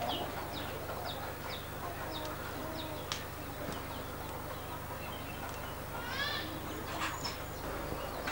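Birds chirping in short, high, falling notes, quick and repeated at first and then sparser, with a longer call about six seconds in, over a steady low hum.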